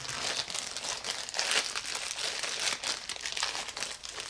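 A small plastic parts bag crinkling on and off as hands open it and rummage through it for fittings.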